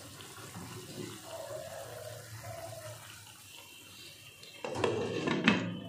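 Thin fish curry bubbling at a simmer in a nonstick kadai. About five seconds in, a glass lid is set down on the pan with a louder clatter and a sharp click.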